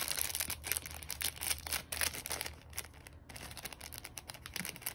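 Packaging rustling and crinkling as a small item is handled and opened, in many short, irregular crackles and clicks.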